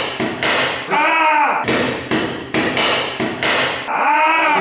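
Repeated hammer blows on metal at a bench vise, about two to three strikes a second. Twice, a drawn-out tone rises and falls over the blows.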